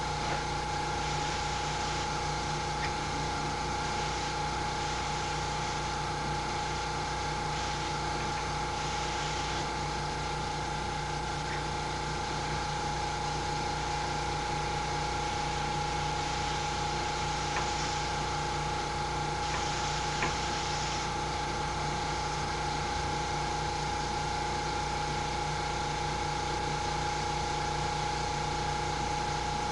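Small airbrush air compressor running with a steady hum and a strong single tone, while the airbrush's spray hiss swells and fades several times as the trigger is worked.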